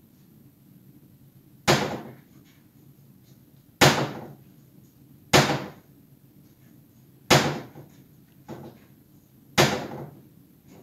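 Wooden kitchen cabinet door slamming shut five times, roughly every two seconds, as a cat paws it open and lets it go, with a fainter knock between the last two slams.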